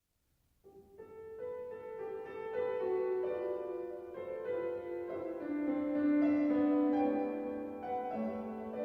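Piano playing the opening of a choral hymn arrangement, held notes and chords, starting about half a second in.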